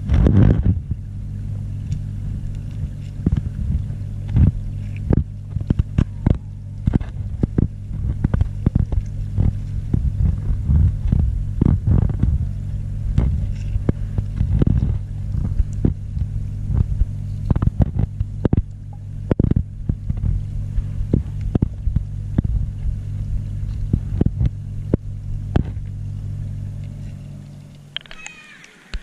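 Muffled underwater sound picked up by a submerged action camera: a steady low hum with frequent sharp knocks and taps on it. The hum fades away near the end as the camera comes up out of the water.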